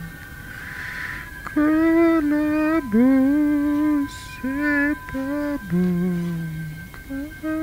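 Music: a slow melody of held notes, each sliding into pitch, over a constant high steady tone.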